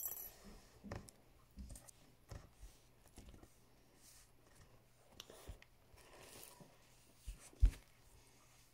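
Faint, scattered clicks and soft crackles of slime with foam beads being kneaded and stretched by hand, with one louder low thump near the end.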